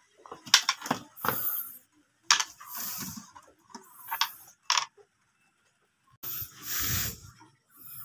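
Freshly caught fish being handled in a plastic crate: irregular slaps, clicks and rustling, with a duller thump about seven seconds in.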